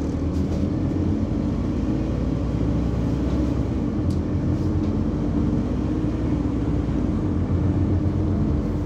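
Scania OmniCity single-deck bus engine running, heard from inside the passenger cabin as a steady low hum and rumble.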